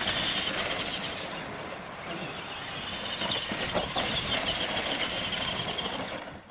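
Radio-controlled monster trucks racing over dirt, their electric motors and gears whining with tyre and gravel noise. The sound dips about two seconds in, builds again as the trucks come on, and cuts off suddenly at the end.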